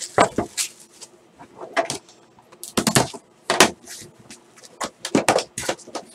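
Cardboard trading-card box being opened and handled, its lid lifted and the packs inside pulled out and set down on a table: an uneven run of rustles, scrapes and light knocks.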